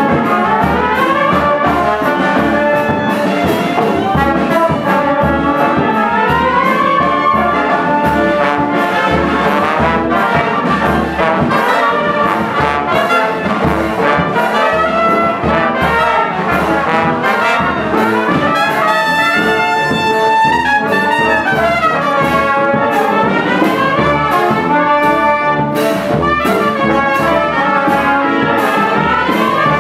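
Military brass-and-reed band playing a tune together live: trombones, euphonium, trumpets, clarinets and alto saxophone, with trumpets carrying much of the melody.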